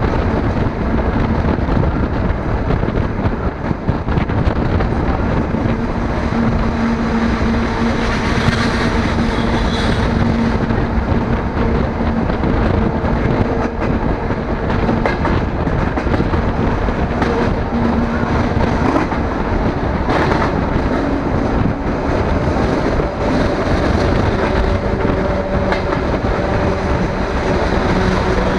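DR1A diesel multiple unit running along the line, heard through an open carriage window: a steady engine hum over loud wheel-and-rail noise, with a few knocks from the track. The hum's pitch shifts about two-thirds of the way through.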